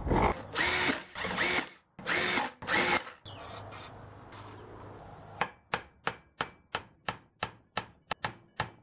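A power tool run in four short bursts, each spinning up and cutting off, trying to free a seized brake caliper piston. An aerosol can then sprays in a hiss for about two seconds, followed by a steady run of sharp clicks, about three a second.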